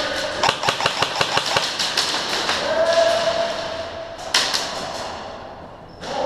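Airsoft gun firing a fully automatic burst of about two seconds, roughly seven shots a second. A steady mid-pitched tone follows, then a single sharp crack.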